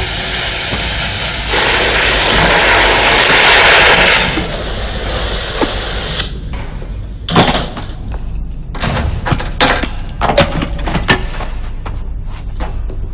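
A loud hiss lasts for about two and a half seconds. Scattered clanks and knocks follow: metal parts and crates being handled on a workbench and shelves.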